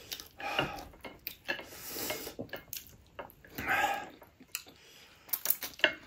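Close-up eating sounds: chewing and mouth noises, with scattered light clicks of utensils against dishes.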